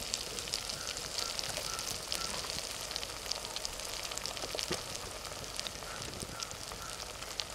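Tomatoes, shallots, dried red chillies and curry leaves sizzling in hot oil in an aluminium kadai, a steady hiss with many fine crackles and spits.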